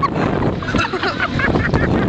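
A rider laughing hard in quick, breathy bursts of 'ha-ha' while being whirled around on a Scrambler ride, with wind rushing over the microphone.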